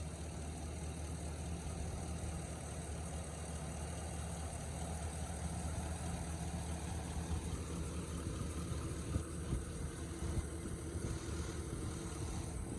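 Engine of a 2015 Chevrolet Silverado 2500HD pickup idling steadily, with a few short knocks about three-quarters of the way through.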